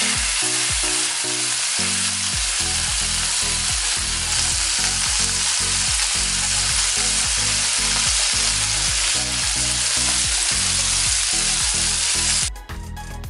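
Spice-coated sardines shallow-frying in hot coconut oil in a pan: a loud, steady sizzle that cuts off suddenly near the end.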